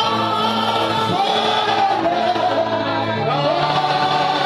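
Congregational gospel worship singing, voices holding long sustained notes over music.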